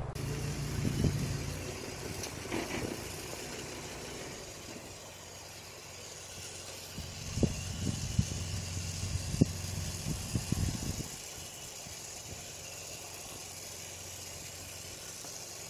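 A low, steady engine hum with a high hiss over it, and a few short thuds between about seven and eleven seconds in.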